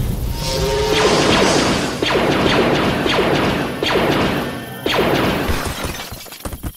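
Action-film sound effects of a speeder-bike chase: a run of quick falling swooshes about once a second among crashes and thuds, over music, dying away near the end.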